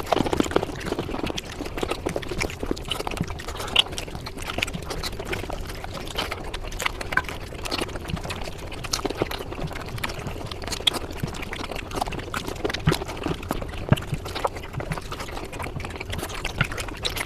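Sped-up eating sounds: a rapid, dense run of wet chewing, smacking and slurping noises without a break.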